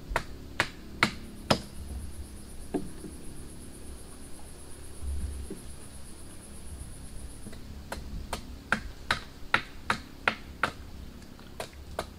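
Sharp knocks, about two to three a second: a short run in the first second and a half, then a longer run from about eight seconds in. Between the runs an insect buzzes high and steady.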